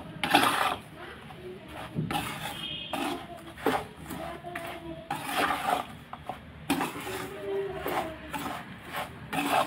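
Perforated metal spatula scraping and stirring semolina in a metal pan, in repeated uneven strokes about once a second. The semolina is being roasted in ghee together with fried dry fruits.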